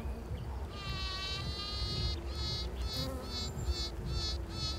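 Bees buzzing: a long pitched buzz held for over a second, then a run of short repeated buzzes about three a second.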